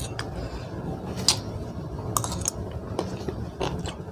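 Scattered sharp clicks and taps of food, utensils and dishes being handled as eating begins, over a low steady hum.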